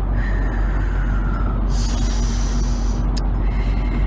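Steady road and engine rumble inside a car's cabin at highway speed, with a woman taking slow deep breaths, one long breath out about two seconds in.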